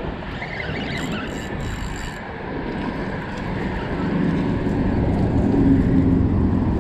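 Low engine rumble from passing motor traffic, growing louder about four seconds in.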